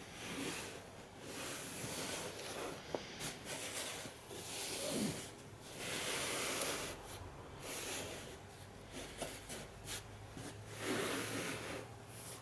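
Hands and cleaning cloth rubbing over the shell of a pickelhaube helmet: soft rubbing strokes that swell and fade every second or two, with a couple of light taps.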